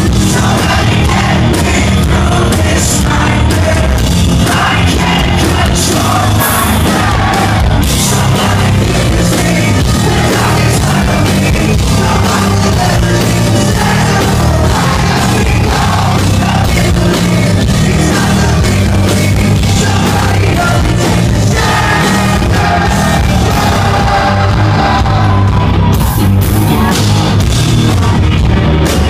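Live hard rock band playing loud with electric guitar, bass guitar and drums, a lead singer singing and shouting over it. The sound is dense, even and unbroken.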